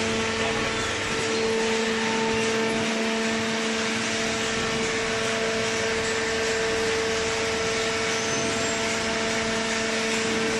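Vertical cardboard baler's hydraulic power unit, an electric motor driving the pump, running with a steady whining hum and a hiss.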